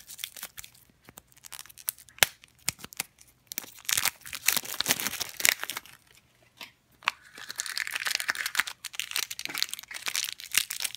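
Plastic toy packaging being torn open and crinkled by hand: a run of sharp crackles and short rips. Near the end comes a longer stretch of crinkling as a foil blind bag is scrunched.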